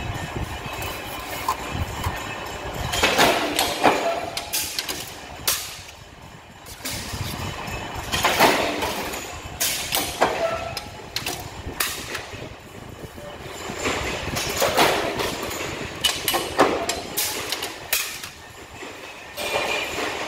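Steel sheet-metal clanking from a power press punching cupboard plates, in bursts every few seconds as each plate is loaded, struck and stacked, over a low steady machine rumble.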